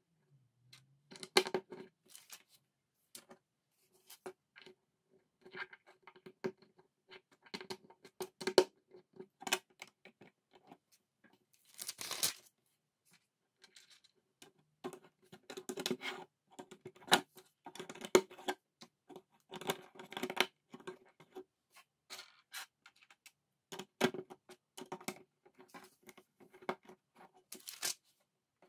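Plastic LEGO bricks clicking and rattling as they are picked up by hand and pressed together, in irregular bursts of small clicks, with a brief rustling scrape about twelve seconds in.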